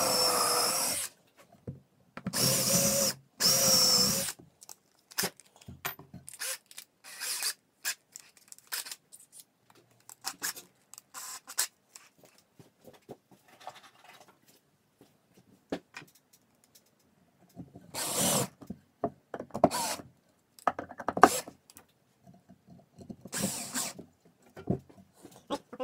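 Power drill driving screws into timber in runs of a second or two, twice near the start and three more times later, with scattered knocks and clicks between.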